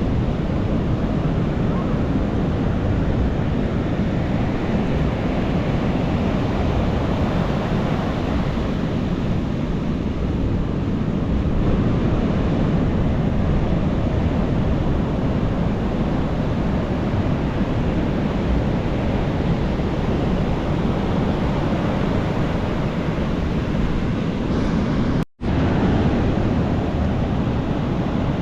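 Ocean surf: big waves breaking and washing up on a beach, a continuous, even rushing noise heaviest in the low end. The sound cuts out for a split second about 25 seconds in, then resumes.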